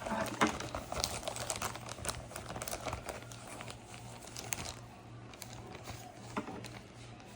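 Plastic packaging crinkling and tearing as a visa packet is opened by hand, a dense run of rapid crackles for about five seconds that then thins out to occasional rustles.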